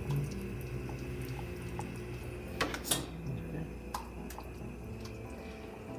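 A metal utensil clinking against a stainless steel cooking pot, with a couple of sharp clinks about two and a half to three seconds in and another near four seconds, over a low steady hum.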